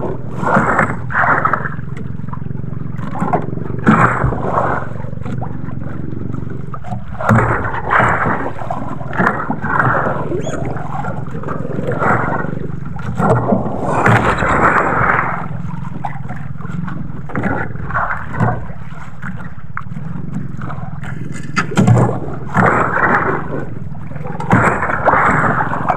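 Small outrigger fishing boat's engine running steadily, with irregular surges of water splashing against the hull every second or two.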